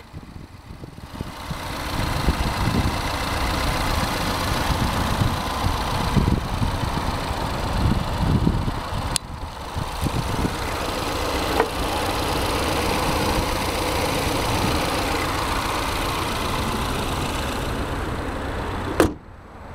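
Ford Focus ST's 2.0-litre EcoBoost turbo four-cylinder engine idling steadily with the hood open. The hood is slammed shut near the end, and the engine sound drops away sharply after it.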